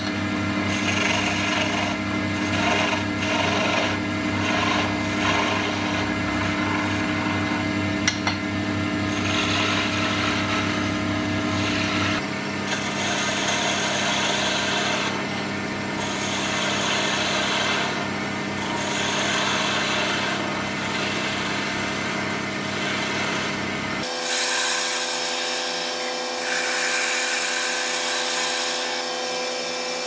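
A small wood lathe runs with a steady hum while a skew chisel shaves a spinning walnut pencil blank in repeated scraping passes. The hum changes pitch abruptly twice, about 12 and 24 seconds in.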